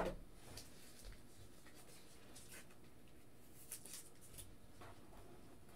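Quiet room tone with a few faint, scattered clicks and light rustles: one right at the start and a small cluster a little after the middle.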